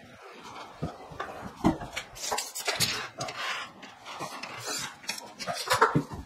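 Irregular clicks, knocks and light metallic rattles of hand work at a ceiling from a stepladder: a tape measure and marker being handled against the plasterboard while marking out downlight positions, with a louder knock near the end.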